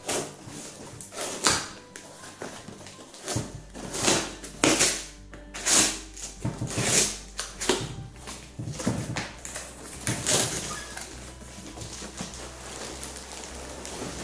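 A cardboard box being torn open by hand: a string of irregular ripping and crinkling noises, with the plastic-bagged contents rustling as they are pulled out near the end.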